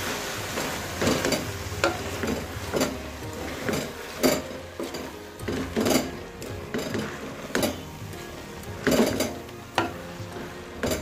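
A cooking spoon stirring and turning chopped spinach and mutton in a metal pot, with irregular scrapes and knocks against the pot over a faint sizzle of frying.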